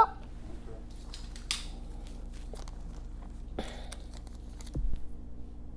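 Steady low electrical hum with a few faint clicks and rustles, and a soft thump about five seconds in.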